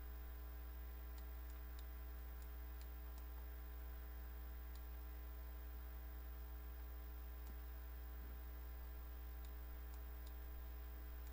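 Steady low electrical mains hum with a stack of overtones, faint under the recording, with a few faint scattered clicks.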